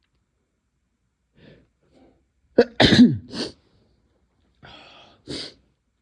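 A person sneezing: a couple of faint catching inhales, then one loud voiced sneeze about two and a half seconds in, falling in pitch, followed by a breath and a short sharp exhale near the end.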